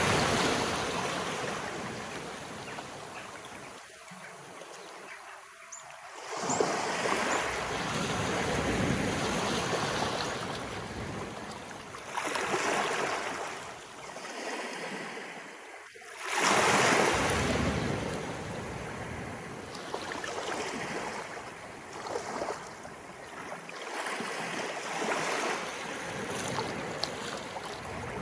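Waves of an incoming tide rolling in and washing up the shore, in swells of rushing water every few seconds, the strongest near the start and about two thirds of the way through.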